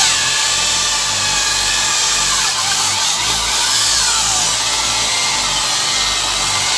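Power tool grinding or sanding on a car body panel, running steadily with its pitch sliding down and back up a few times as it is pressed on.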